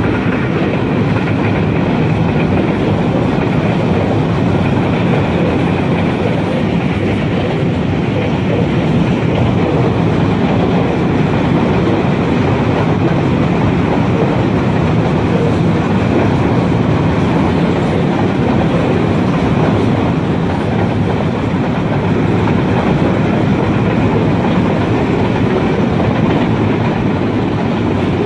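Long container freight train passing steadily: a continuous rumble of its wagons' wheels on the track.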